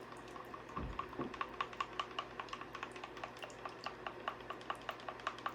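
Odie's oil being stirred in its container, the stirrer clicking against the sides in a quick, even rhythm of about four or five strokes a second, after a low thud just under a second in.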